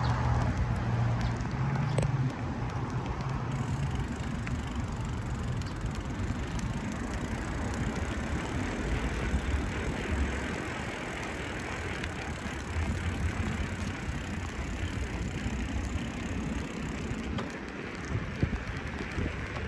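A bicycle being ridden, heard from a camera mounted on the bike: a steady rumble of tyres and riding noise with a few light clicks.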